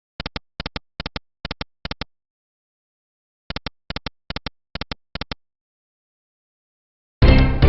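Electronic slot game sound effects: two runs of six quick double ticks with a pause between them, then a loud game jingle starts just before the end.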